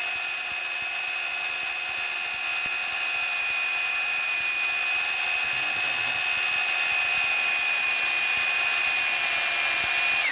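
900-watt electric drill running at steady full speed with an 18 mm flat spade bit boring into a wooden plank: a steady high whine, which drops in pitch and cuts off as the trigger is released at the end. The cheap local-brand bit overheats and smokes in the wood rather than cutting cleanly, which the owner blames on poor quality.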